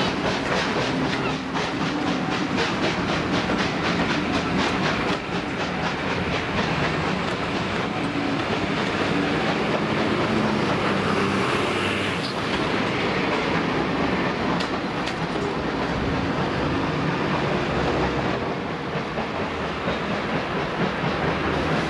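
A train of heritage railway coaches running along the track and drawing away. The wheels give a regular clicking for the first seven or eight seconds over a steady rumble, which continues after the clicks fade.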